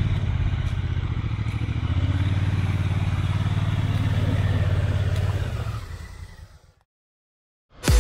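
Honda Africa Twin's parallel-twin engine run at raised revs under throttle while the bike is pushed through deep mud. The engine note steps up about two seconds in, holds steady, then fades out shortly before the end.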